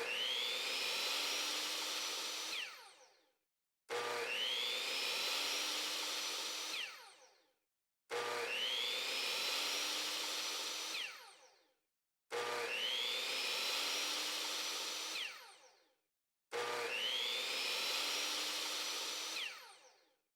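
The same whirring sound effect five times, about every four seconds: each starts with a quick rising whine, holds for about two seconds and fades out.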